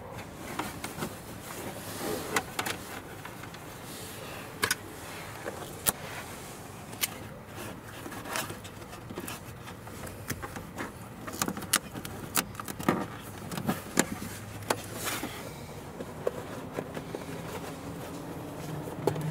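Hands working a thin USB cable in behind a plastic trim panel: scattered sharp clicks and taps of plastic, with rustling in between.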